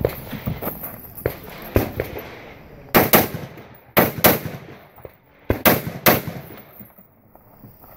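Gunshots from a shouldered long gun, fired mostly in quick pairs: about seven loud shots between three and six seconds in. There are fainter sharp pops in the first two seconds and a short lull near the end.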